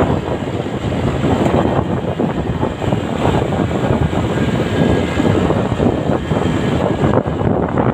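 Steady, loud rush of wind buffeting the microphone on a moving motorcycle, with the bike's engine and road noise blended in underneath.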